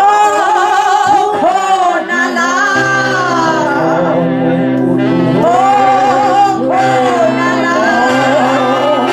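Singing with musical accompaniment: wavering, gliding voices over a held chord that enters about three seconds in.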